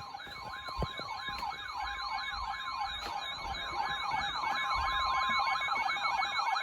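Emergency alert signal: a fast electronic siren sweeping up and down about three times a second, laid over a steady high alert tone, announcing a flash flood warning.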